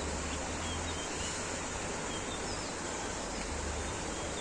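Steady outdoor rushing hiss with wind buffeting the microphone in low gusts, and a few faint, short high chirps scattered through it.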